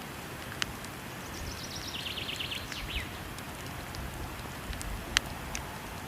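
Steady rush of falling water with the sharp crackles and pops of a burning wood fire. About a second and a half in, a bird sings a short, rapid trill of repeated notes that steps down in pitch.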